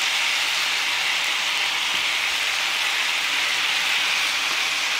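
Thin-sliced sirloin steak, mushrooms and red onion sizzling in a hot frying pan, a steady, even hiss.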